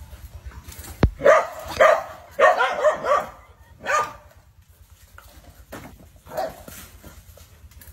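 Dogs barking in short, loud bursts at a snake they are confronting, about five barks in all, with a sharp knock just before the first.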